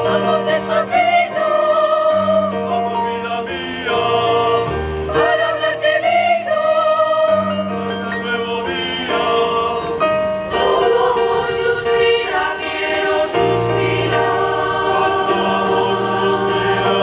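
Polyphonic choir singing in parts, with low and high voices holding sustained chords that change together every second or two.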